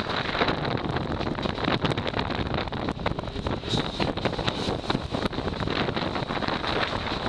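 JR Kure Line train running, heard from inside the carriage: a steady rumbling noise with many small clicks and rattles, and a thin steady high tone over it.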